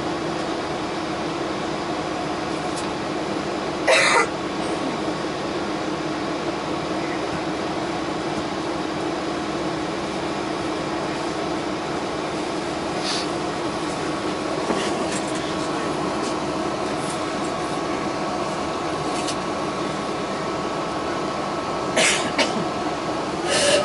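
Inside a New Flyer XD60 articulated bus at a near standstill: a steady engine and air-conditioning drone with a held hum. It is broken by a short sharp hiss-like burst about four seconds in and two more near the end.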